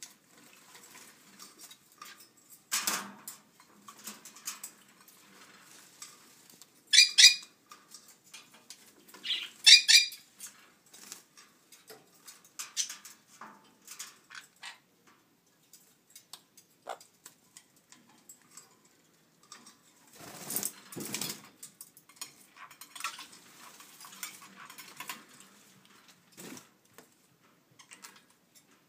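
Conures bathing in stainless steel water bowls: bursts of wing-flapping and splashing, with many small clicks and clinks of claws and beaks on the metal bowl. Two loud, shrill conure calls stand out about seven and ten seconds in.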